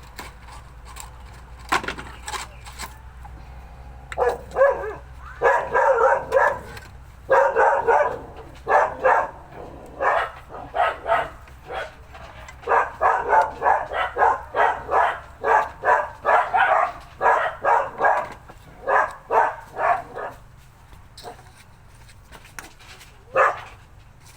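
A dog barking over and over, in quick runs of several barks a second with short pauses between the runs.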